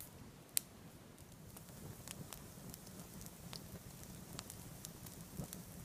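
Small twig campfire crackling, with scattered sharp pops; the loudest comes about half a second in.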